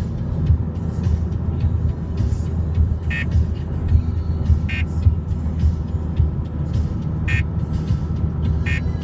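Music playing over the steady low rumble of a motor vehicle, with short sharp hits about every second and a half.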